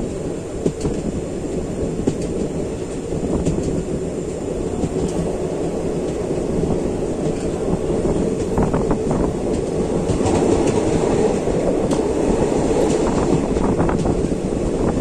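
Passenger train running along the line, heard from on board: a steady rumble of wheels on rails with scattered clicks and clanks.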